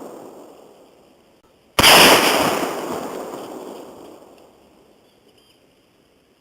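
A loud blast about two seconds in, dying away slowly over about three seconds; the fading tail of an earlier blast trails off at the start.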